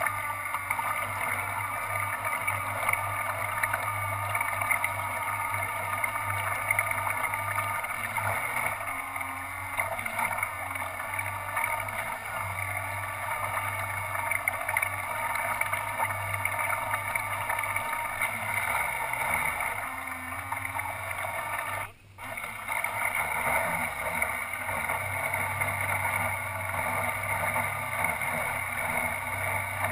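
Motor and propellers of a radio-controlled model ship running steadily under way, with water rushing along the hull, picked up by the camera riding on its deck. About two-thirds of the way through the sound cuts out for a moment and then resumes.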